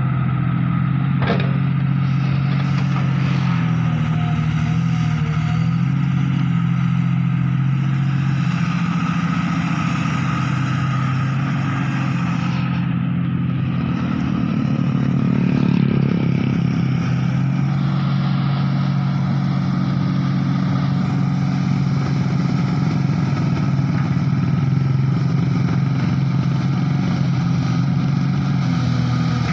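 Komatsu hydraulic excavator's diesel engine running steadily under load as the boom and bucket dig and lift mud to free the bogged-down machine, swelling briefly a little past halfway.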